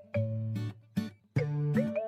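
Upbeat background music: plucked notes on a steady bouncy beat, with short sliding notes.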